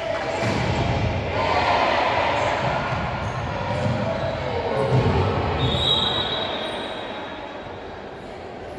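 Echoing indoor futsal game sound: players' shouts, with the ball and feet thudding on the wooden court. Just past halfway a referee's whistle sounds once for about a second.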